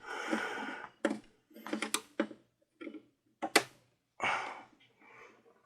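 Irregular clicks, knocks and short scraping rustles of hands handling an old tube radio's parts, with one sharp click about three and a half seconds in.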